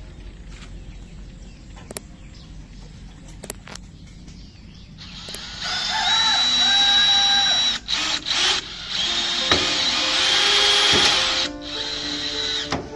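DeWalt cordless drill running with a high-pitched whine as it drills into the wooden frame of a corrugated-metal chicken coop. It runs in a long burst of a few seconds, then a couple of short trigger pulses, then a second long burst. Background music plays underneath.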